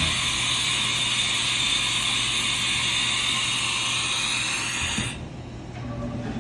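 Haas VF-2 CNC vertical machining center running with a steady hiss and whine during a tool change cycle. The sound cuts off sharply about five seconds in, leaving only faint machine sounds.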